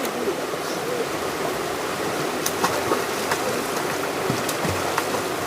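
Steady rush of flowing water from a river or spring, with a few brief clicks over it.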